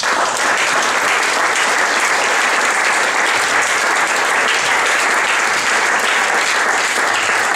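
Audience of a few dozen seated people applauding, the clapping breaking out all at once and holding steady.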